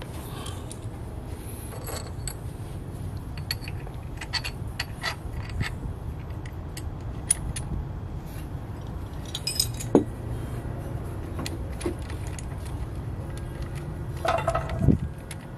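Light metallic clicks and clinks of a steering-damper clamp and small hardware being handled and positioned on an electric scooter's front fork, with a sharper knock about ten seconds in and a short cluster near the end, over a steady low rumble.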